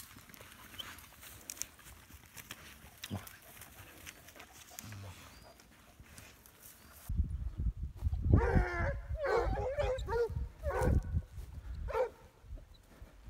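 Faint rustling and twig snaps, then about seven seconds in a sudden rumble of wind on the microphone, over which a pack of scent hounds gives several short bursts of baying and yelping.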